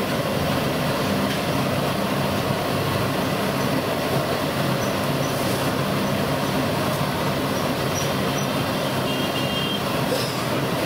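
Ring-shaped vadas (medu vada) deep-frying in a wide iron kadai of hot oil: a steady, even sizzle over a constant low rumble.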